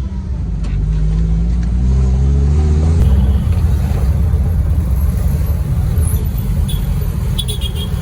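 Car engine running with loud low road rumble, its pitch climbing slightly in the first few seconds; the sound changes abruptly about three seconds in to a rougher, fuller road noise.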